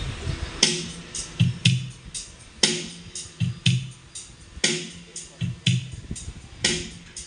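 Music with a drum-machine beat played loud through a sound system under test. The beat has a sharp snare-like hit about every two seconds, with pairs of low kick-drum thuds between them.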